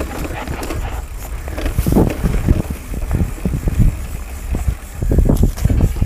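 Mountain bike rolling down a dirt singletrack: irregular knocks and rattles of the bike over bumps, over a steady low rumble of wind on the microphone.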